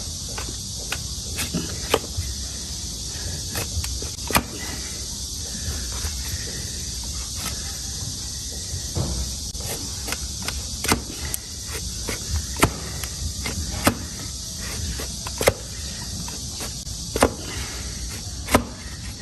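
A series of sharp knocks and clicks, roughly one every second or so and irregularly spaced, over a steady high hiss.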